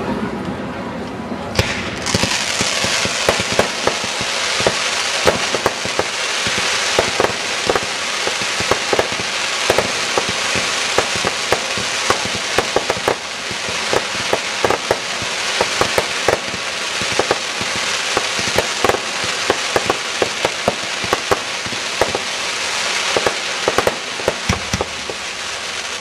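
Fireworks crackling: a dense, continuous stream of small sharp pops over a sizzling hiss that starts about two seconds in and runs on without a break, with no big booms standing out.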